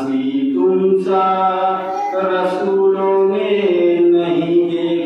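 A man's solo voice chanting a devotional recitation, unaccompanied, in long held notes that slide slowly between pitches.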